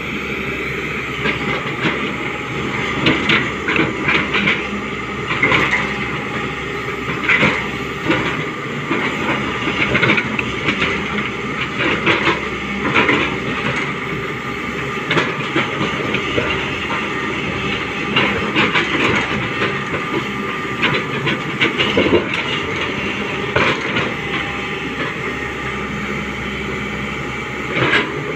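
Hyundai 245LR long-reach excavator working: the diesel engine and hydraulics run steadily, with frequent irregular knocks and clanks over it.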